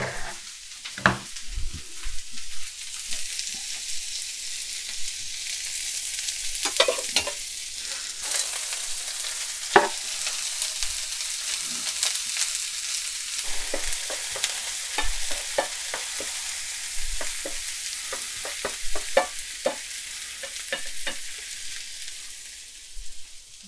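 Onions sizzling steadily in hot oil in a frying pan, with frequent short clicks and scrapes of a utensil stirring them. The sizzle eases a little near the end.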